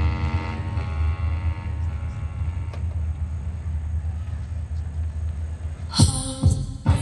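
Dance music for a stage routine: a deep, steady rumble under a held chord that fades away over the first few seconds. About six seconds in, a hard electronic beat with heavy bass comes in.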